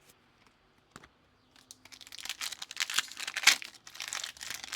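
Plastic trading-card pack wrapper being torn open and crinkled by hand: a faint click about a second in, then a couple of seconds of dense crackling that peaks near the end.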